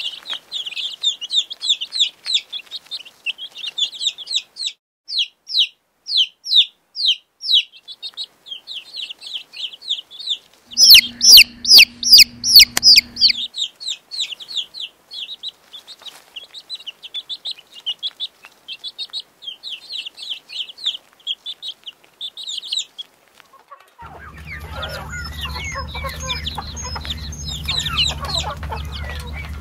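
Chicks peeping: rapid, high-pitched, falling cheeps, several a second. A louder burst about 11 seconds in has a low hum under it. In the last few seconds lower, busier calls run over a steady low hum.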